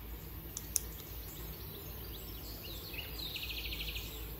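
Fine-tip pen on journal paper: a couple of sharp clicks about half a second in, then a quick run of scratchy strokes about three seconds in as it writes, over a steady low hum.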